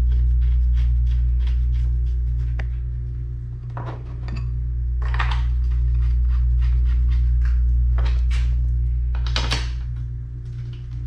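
Small metallic clicks and clinks of steel bolts being handled and threaded by hand into a New Process 208 transfer case, with a few louder clinks about 4, 5, 8 and 9.5 seconds in. Under them runs a steady low hum, the loudest sound, which fades briefly twice.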